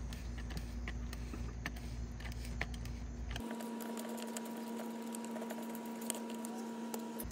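Scattered light clicks and ticks of a threaded flexible-conduit connector being unscrewed from a 90-degree elbow fitting, over a steady hum.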